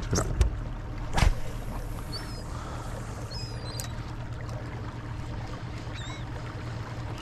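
Steady low hum and light water noise around a kayak, broken by a sharp knock about a second in. A few short, wavering high bird calls come through.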